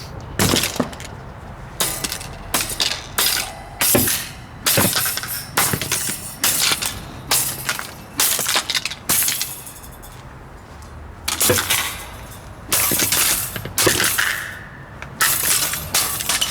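An old Super Deluxe table fan being smashed apart: a long run of irregular hard blows with the cracking and crunching of brittle plastic and metal breaking up, some blows trailing into a second or so of crackling.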